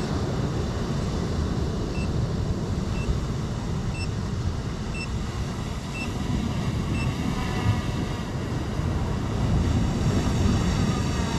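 Steady wind buffeting the microphone over ocean surf. Faint short high beeps about once a second come through for a few seconds in the middle.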